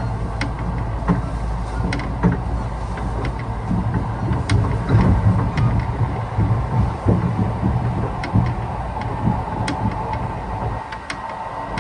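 Kintetsu Osaka Line express train heard from inside the car while running: a steady rumble of wheels on rail with scattered sharp clicks.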